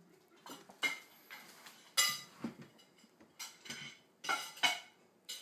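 A string of sharp clinks and knocks of hard objects, about eight in five seconds at an uneven pace, some of them with a short ringing tone like dishes or utensils striking each other.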